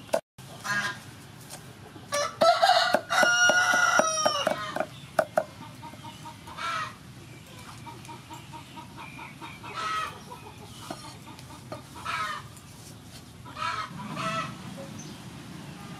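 A rooster crows loudly once, about two seconds in, and chickens cluck several times afterwards. A knife taps now and then on a wooden chopping board as chili and garlic are chopped.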